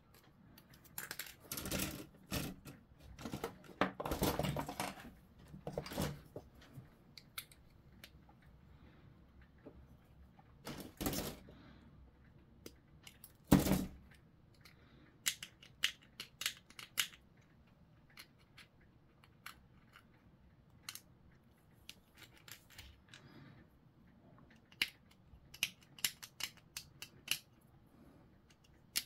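Grey plastic model sprue being handled and cut with sprue cutters: rustling in the first few seconds, then sharp snips, the loudest about halfway through. A run of light clicks and scrapes follows as a small metal tool works on the clipped plastic part.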